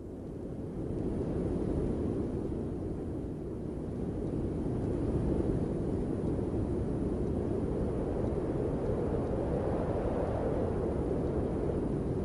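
Low, steady rushing of wind, fading in over the first two seconds and then holding even.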